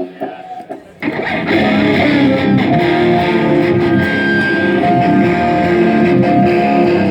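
Amplified electric guitar at a band sound check: a few quiet picked notes, then about a second in, loud chords ring out and are held.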